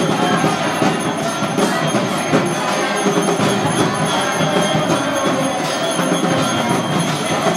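Devotional kirtan music led by jingling hand cymbals and ringing bells, the bell-and-cymbal music that accompanies an arati lamp offering. A steady held tone sounds under the dense strikes.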